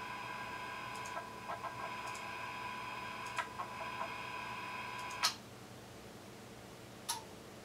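An energised linear servo motor axis holding position, giving off a steady high whine of several tones, with a few light clicks. About five seconds in there is a sharp click and the whine stops at once as the servo drive restarts and the motor is de-energised. A single click follows near the end.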